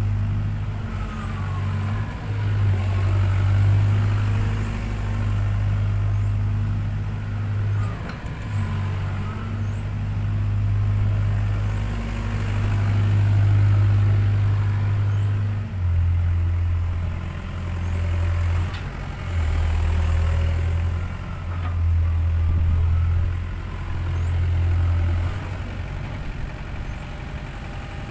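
Sany SY60C mini excavator's diesel engine running, its hum swelling and easing every few seconds, then pulsing up and down in shorter steps at a slightly lower pitch in the second half.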